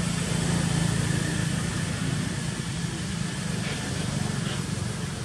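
A motor running steadily nearby: a constant low rumble under an even hiss.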